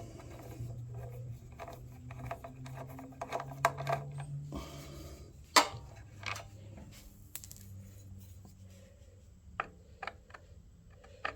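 Metal hand tools and sockets clinking and knocking as they are handled, with one sharp metallic clink about five and a half seconds in.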